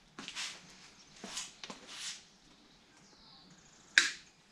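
Bicycle brake cable and housing being handled and tucked into place on a kids' bike: soft scraping and rustling, a short high squeak just past three seconds, then one sharp click about four seconds in.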